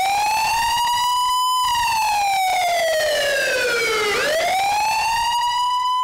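Ambulance siren sound effect in the dance's backing track, played over the stage speakers: one wailing tone that rises and holds, falls slowly for a couple of seconds, rises again near the end and then cuts off abruptly.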